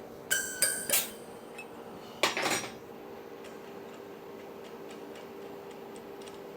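Metal clanks with a ringing tone, a quick cluster of three and then one more with a short rattle about two seconds in, as a compressed-gas cylinder and its regulator are handled during a bottle change. A steady low hum runs underneath.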